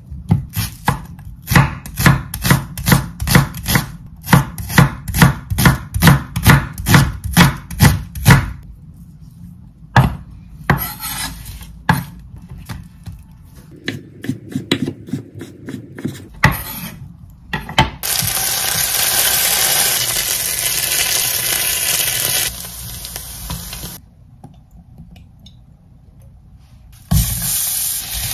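Knife chopping an onion on a wooden cutting board, steady strokes about two or three a second for the first eight seconds, then slower, sparser cuts through a slab of bacon. From about eighteen seconds, onion and bacon sizzling in olive oil in a frying pan; the sizzle drops away for a few seconds and comes back near the end.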